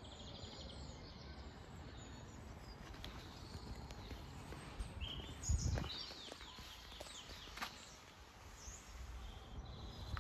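Faint outdoor ambience: small birds chirping and singing, with a quick run of descending trills about six seconds in, over a low steady rumble. A soft low thump about five and a half seconds in.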